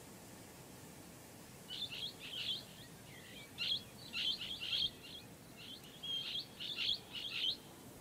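Blue-headed parrot (Pionus menstruus) giving a run of short, sharp, high calls in three quick clusters, starting about two seconds in and stopping just before the end.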